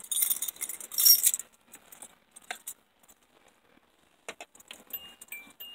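Car keys on a lanyard jangling, then a few sharp clicks as the key goes to the ignition of a Hyundai Elantra. Near the end the car's warning chime starts, a repeating two-note beep.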